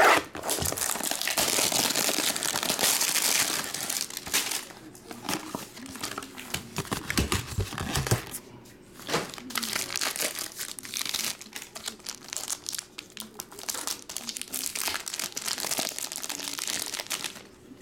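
Plastic wrapping on trading-card packs being torn open and crinkled by hand, in long stretches of dense rustling broken by short pauses.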